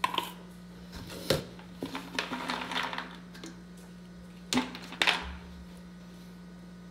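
Kitchen handling noises: a knife clinking in an open metal can and a plastic jar being picked up and tipped, giving sharp clicks and clatters, with a run of quick small clicks about two to three seconds in. A steady electrical hum runs underneath.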